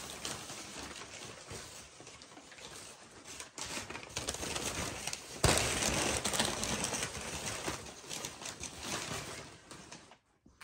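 Crumpled brown kraft packing paper crinkling and rustling as it is handled and pushed aside. It gets suddenly louder about halfway through and stops shortly before the end.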